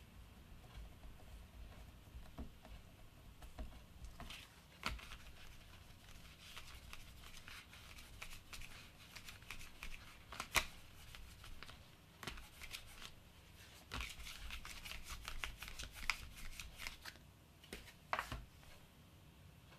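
Hands working modelling clay with small plastic tools: soft rustling and squishing with scattered light clicks and taps.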